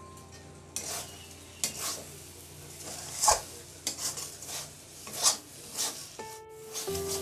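Metal spatula scraping and stirring a thick ridge gourd and poppy seed paste (jhinge posto) around a metal kadai, in about eight quick, irregular strokes.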